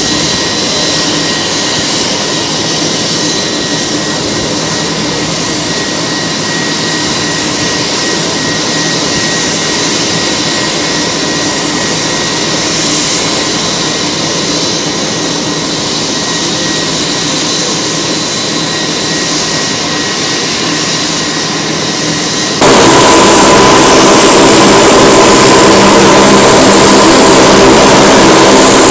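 Allison T56 turboprop engines of a P-3 Orion running on the ground: a steady turbine whine with several high tones over a propeller hum. Near the end it turns abruptly louder and fuller.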